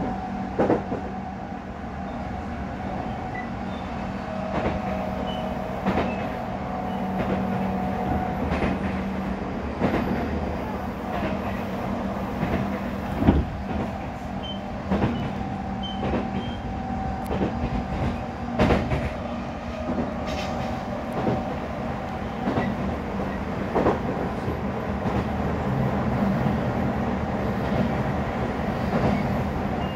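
Odakyu 3000 series electric train running at speed, heard inside a motor car: steady hum and whine from its Mitsubishi IGBT VVVF inverter and totally enclosed traction motors over the rolling noise of the wheels. Sharp knocks from the wheels crossing rail joints come every second or two, a few of them louder.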